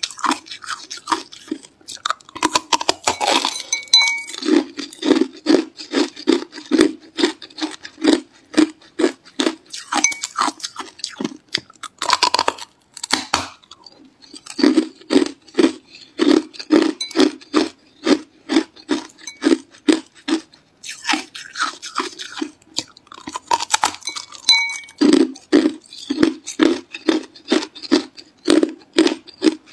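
Hard ice being bitten and chewed close to the microphone: a continuous run of sharp crunches, about two or three a second, with a few louder bites breaking off fresh pieces.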